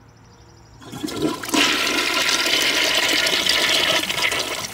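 1920s Kohler Selkirk toilet flushing: a rush of water into the bowl starts about a second in, holds loud and steady for a few seconds, then eases off near the end.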